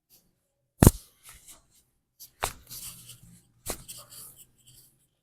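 Chiropractic drop table sections snapping down under adjustment thrusts: three sharp clacks, the first about a second in and the loudest, with cloth rustling between them.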